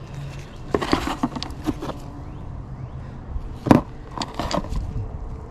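Fuel injectors being handled by gloved hands, clicking and knocking as one is set down among the others on cardboard; the sharpest knock comes a little past halfway. A steady low hum runs underneath.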